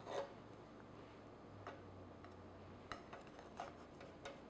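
Faint, scattered clicks and taps of a knife cutting a slice from a soft cake on a wire cooling rack, roughly one a second, over a low room hum.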